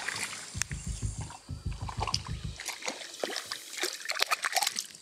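Water splashing and sloshing in short, irregular bursts as a hooked fish thrashes at the surface of a stream. A low, evenly pulsing music bed runs underneath and fades out about halfway through.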